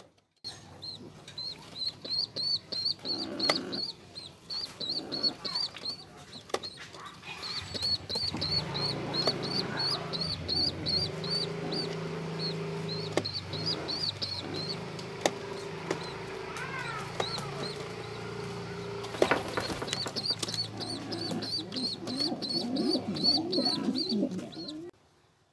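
Domestic pigeon squab begging from the adult pigeon in the nest box: rapid, regular high-pitched peeps with wing fluttering. A low steady hum runs through the middle.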